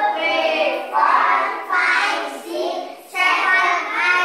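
A group of young children singing a song together, in sung phrases of a second or two with short breaks between them.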